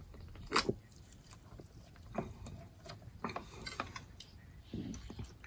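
Metal fork clinking and scraping against a plate: a few sharp clicks, the loudest about half a second in.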